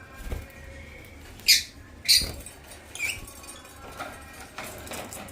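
African lovebirds giving short, shrill squawks: two loud calls about a second and a half and two seconds in, then softer calls.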